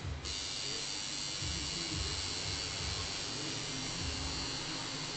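Electric tattoo machine buzzing steadily as the needle works into skin, after a brief pause right at the start.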